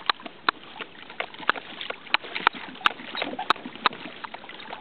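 Irregular sharp clicks and taps, two or three a second, from a fishing kayak and its tackle while a big wahoo pulls on the line, over a faint hiss of water.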